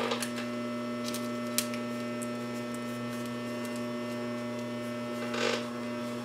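Steady electrical hum, with light handling sounds on top: a couple of small clicks about a second in and a brief rustle of fabric and cord near the end as hands smooth the trim flat.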